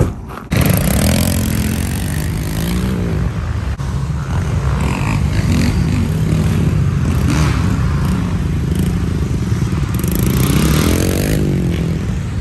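Dirt bike engine running and revving up and down as it is ridden on a wheelie along a gravel road. The sound starts abruptly about half a second in, and the pitch sweeps up and back down twice, once near the start and once near the end.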